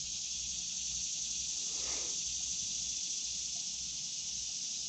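Steady high-pitched drone of an insect chorus. A faint brief rustle comes about two seconds in.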